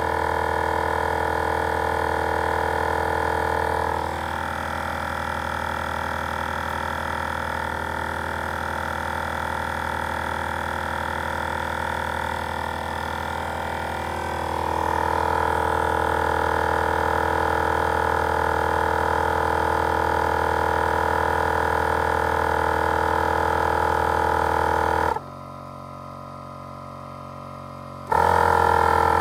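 Air compressors running steadily: a Wolfbox dual portable compressor and a Kobalt shop compressor, both inflating tires. The tone steps down about four seconds in and back up around fifteen seconds. Near the end it cuts out for about three seconds, then starts again.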